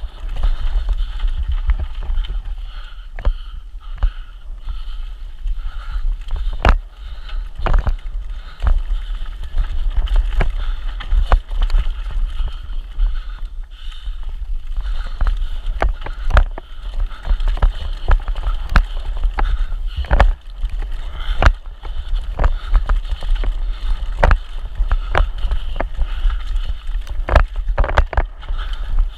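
Santa Cruz Hightower mountain bike descending a downhill race course at speed: steady wind rumble on the microphone with tyre noise, broken by frequent sharp clunks and rattles from the bike over rough ground.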